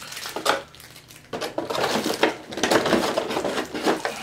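Thin plastic packaging tray being handled against a cardboard box and set back into it: rustling, scraping and light clattering, busiest from about a second and a half in.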